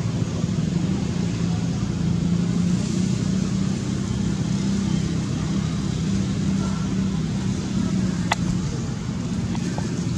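Steady low drone of a running engine, with a single sharp click about eight seconds in.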